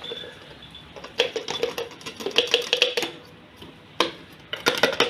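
Clear plastic spice-grinder jar being unscrewed from its black blade base and handled: a run of sharp plastic clicks and rattles with a little ringing, a single knock about four seconds in, then another quick burst of clicks near the end.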